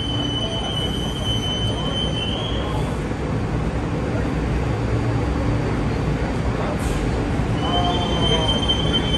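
AnsaldoBreda P2550 light rail train: a steady low rumble with a high, steady whine over it. The whine rises slightly and stops about two and a half seconds in, then comes back near the end.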